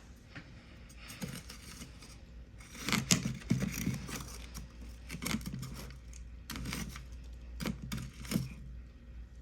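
Crunching of freezer frost being chewed: irregular crisp crunches, the loudest cluster about three seconds in, then single crunches every second or so.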